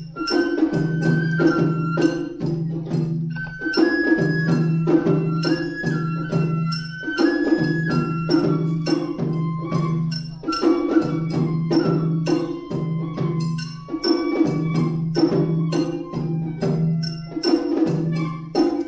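Japanese festival music (matsuri-bayashi): a shinobue bamboo flute plays a melody of held, stepping notes over taiko drums beating a quick, steady rhythm.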